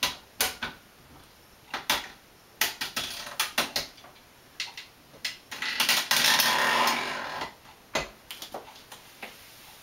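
Floor-standing lever wine corker being worked to drive a cork into a wine bottle: a string of sharp mechanical clicks and knocks from the lever and jaws, then a louder noisy stretch of about a second and a half around six seconds in as the cork is squeezed and pushed home, and a single knock about two seconds later.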